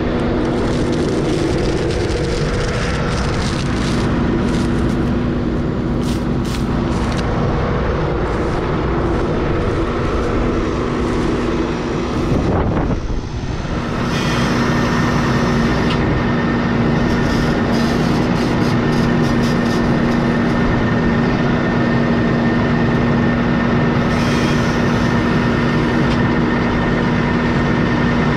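Farm tractor's diesel engine running steadily, heard from the operator's seat, with a steady hum; the noise dips briefly about halfway through, then carries on at the same level.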